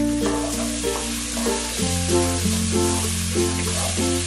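Chopped onions, garlic, tomatoes and chili peppers sizzling as they are sautéed in a pot and stirred with a wooden spatula, under background music of short repeating notes over steady bass notes.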